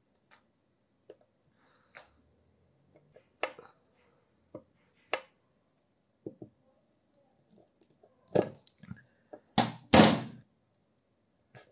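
Workbench handling noises on a wooden tabletop: scattered light taps and clicks, then a few louder knocks near the end, the loudest lasting under a second.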